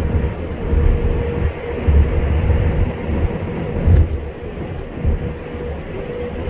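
Road noise of a vehicle travelling at expressway speed: a steady rumble of tyres and engine that swells and eases unevenly, with a faint steady hum above it.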